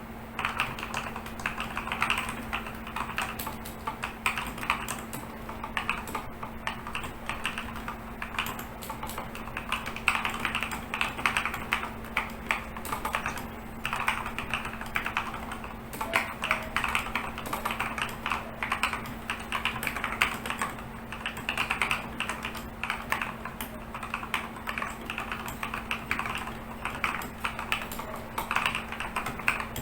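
Fast continuous typing on a MyBenben DMMK02 tenkeyless mechanical keyboard whose switches have been lubed by the push-stem method: a dense, irregular clatter of keystrokes.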